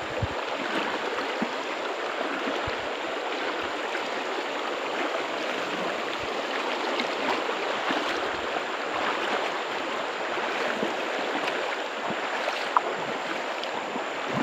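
Shallow mountain stream running over a rocky, gravelly riffle: a steady rushing of water, with one short sharp tick a little before the end.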